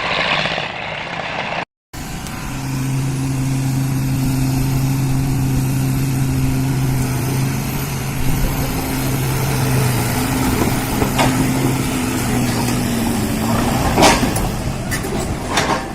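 A truck engine running at a steady, low pitch, with a few sharp knocks near the end.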